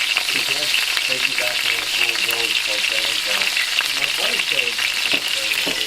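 Food frying in a pan, a steady crackling sizzle, with people talking quietly underneath.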